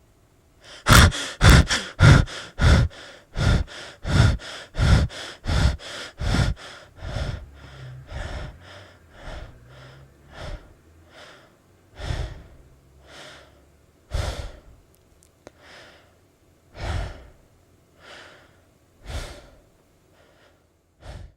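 A person breathing hard in and out, fast at first at about two breaths a second, then slowing and fading, with the breaths more than a second apart near the end.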